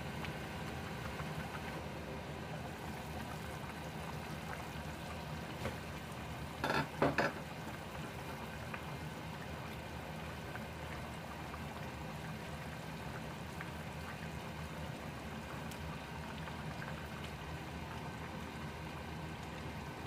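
Food cooking on the stove: a steady bubbling, sizzling hiss, with a brief clatter about seven seconds in.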